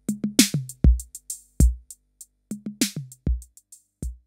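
Drum machine beat of kicks, pitched toms and hi-hats played through a breadboard diode VCA whose control voltage is being turned up. The hits get quieter toward the end as the VCA cuts the output volume.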